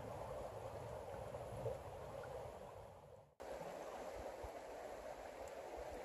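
Creek water flowing, a faint steady rushing wash; it cuts out for a moment a little past halfway and then resumes.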